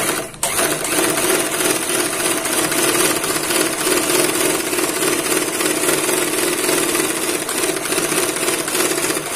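Singer 81A1 overlock machine running at speed, stitching along the edge of a strip of cloth: a loud, steady, fast mechanical whir that starts about half a second in.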